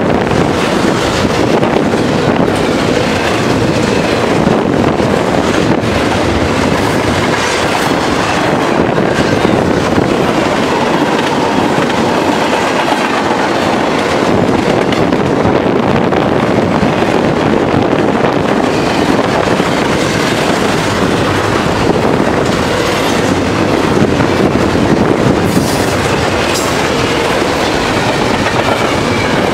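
Double-stack intermodal freight train's well cars passing at speed: a loud, steady rumble of steel wheels on the rails with scattered clacks, going on without a break.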